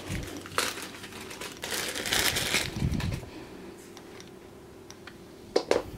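Plastic packaging bag crinkling as it is handled and opened and a coiled power cable is pulled out. It is loudest about two seconds in, then goes quieter.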